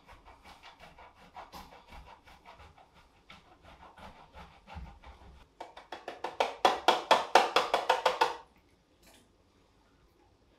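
Cheese being grated on a stainless-steel box grater: a rhythmic rasp on each stroke. The strokes grow louder and quicker, about five a second, a little past halfway, then stop a couple of seconds before the end.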